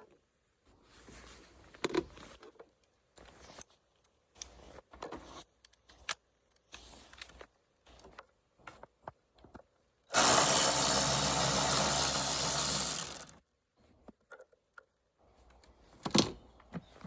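Hand tools and metal car parts being handled, with scattered clicks and knocks. About ten seconds in comes a loud, steady, noisy burst lasting about three seconds.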